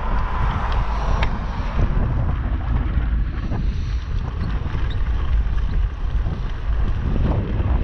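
Wind buffeting the microphone of a camera on a moving bicycle: a steady low rumble, with a single sharp click about a second in.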